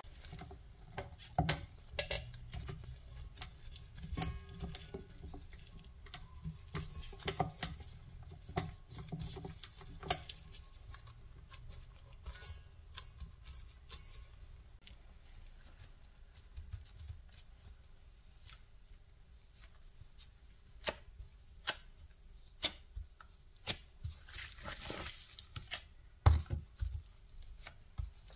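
Gloved hands handling crumbly shortcrust dough in a stainless steel stand-mixer bowl and then pressing it on a baking mat: scattered clicks, knocks and light rattles of the metal bowl and beater, with rustling. A few louder thumps come near the end as the dough is pressed down.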